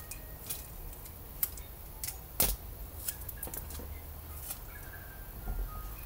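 Hands handling craft tools on a cutting mat: scattered light clicks and taps from the scissors, box cutter and tape roll, with a sharper knock about two and a half seconds in.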